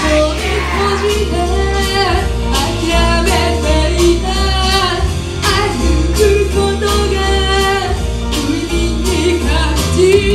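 A woman singing live into a microphone over a loud recorded backing track with heavy bass and a steady drum beat, through a small club's sound system.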